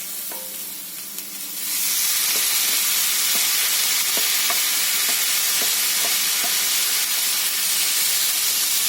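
Finely chopped tomatoes hitting hot oil and browned onions on a tawa: the sizzle jumps to a loud, steady hiss about two seconds in, with light clicks of a spatula as they are stirred.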